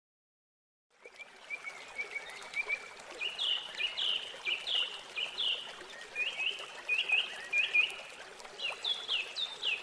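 Garden birds singing: a run of short chirps and quick downward-sliding whistles, two or three a second, over a faint steady hiss. It starts suddenly about a second in.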